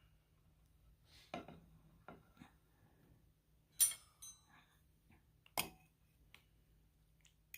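Dishes and cutlery clinking and knocking during a meal: a few separate sharp clinks, the loudest about four seconds in with a brief ringing tone.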